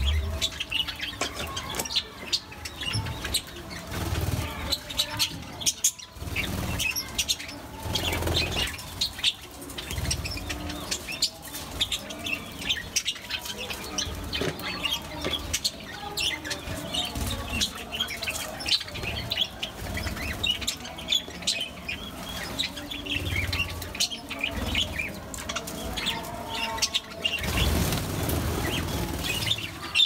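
A flock of budgerigars chattering, with many short overlapping chirps and warbles throughout, and now and then the flutter of wings.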